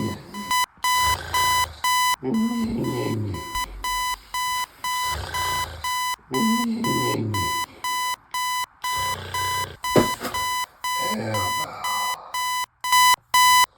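Alarm clock beeping on and on in an even rhythm of high, steady beeps. Under it a person snores in long, slow breaths every couple of seconds. A sharp click comes about ten seconds in, and the beeping gets louder near the end.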